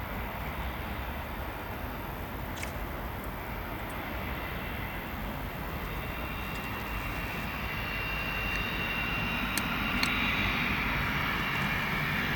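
Cessna Citation XLS business jet's twin turbofan engines running: a steady rush with a high whine that comes in about halfway through and grows louder toward the end.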